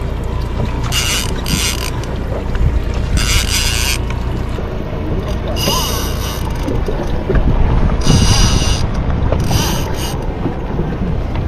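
Big-game conventional fishing reel buzzing in short bursts, about six times, while a hooked fish is fought on a bent rod, over a steady low rumble of wind on the microphone.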